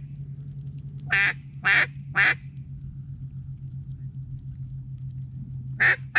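Hen-duck quacking: two sets of three short, loud quacks about half a second apart, the first set about a second in and the second near the end. A steady low hum runs underneath.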